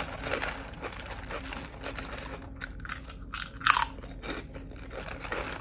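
A person chewing a mouthful of food, with irregular wet mouth noises and one louder one about three and a half seconds in.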